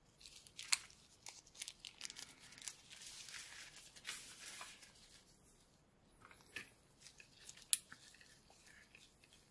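Plastic packaging crinkling and rustling as small accessories are handled, with sharp clicks of small plastic parts. A denser rustle runs from about two to five seconds in, and the loudest click comes near the end.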